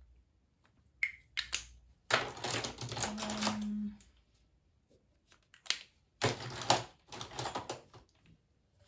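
Small plastic makeup packaging clicking and clattering in several short spells as products are rummaged through and picked up, with a brief hummed "mm" in the middle.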